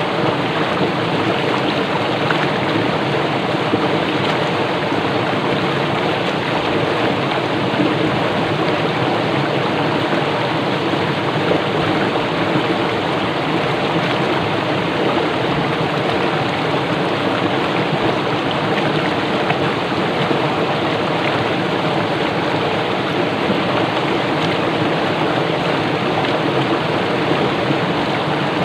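Swift stream rushing and churning over rocks, a steady, unbroken rush of water.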